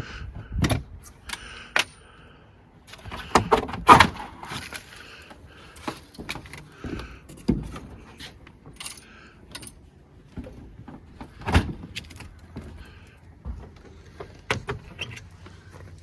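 Irregular knocks, clanks and scraping with a metallic rattle from tearing out aluminum-clad siding and rotted wall framing, with the sharpest hits about four seconds in and again past the middle.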